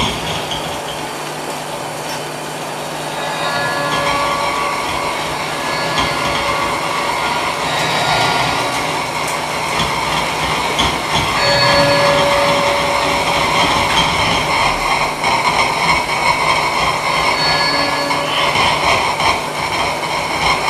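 Reel-to-reel film projector running with a continuous rattling clatter, layered with live electronic sound-art noise in which short held tones at several pitches come and go.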